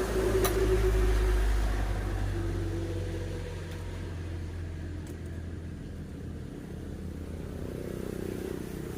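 Engine running with a low, steady rumble that is loudest in the first couple of seconds and then settles to a lower level; a single sharp click sounds about half a second in.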